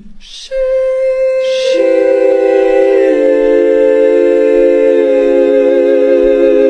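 A sung chord held by several voices, choir-like, built up part by part: a first voice about half a second in, lower voices joining about a second and a half and three seconds in, then held steady.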